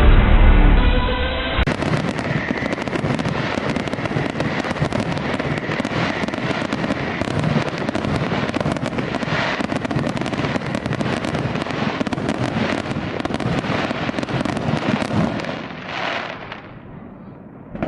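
Aerial fireworks shells bursting: a deep boom at the start, then a dense, continuous crackling of many bursts that thins out about three-quarters of the way through, with one last flurry and a fresh bang at the very end.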